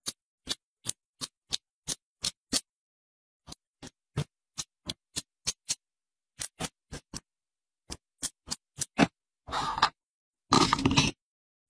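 Small sharp plastic clicks and taps, about three a second with short pauses, from tiny plastic toy pieces handled with metal tweezers. Near the end come two longer scraping rubs of plastic.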